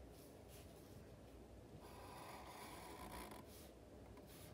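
Faint scratching of a Sharpie felt-tip marker drawing lines on paper: a few short strokes, then a longer stroke about two seconds in lasting a second and a half, then a couple of short ones.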